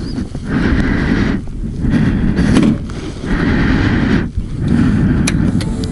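KTM 790 Duke's parallel-twin engine being cranked on the electric starter without catching, in about four bursts of roughly a second each with short breaks between: the engine will not fire.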